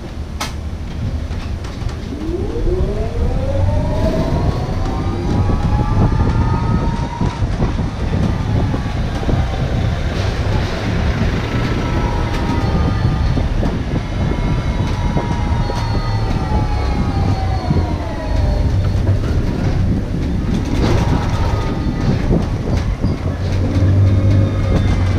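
Electric tram's traction motor whining as it drives: the whine rises in pitch as the tram pulls away about two seconds in, holds, then falls and rises again several times with the changes in speed, over a steady low road rumble.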